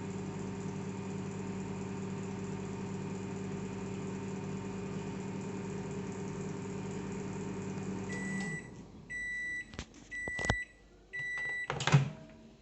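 LG MS-1948 microwave oven running with a steady hum, which stops about eight seconds in; then it beeps about four times to signal the end of the cycle. A few sharp clicks come among the beeps, with a loud clunk near the end.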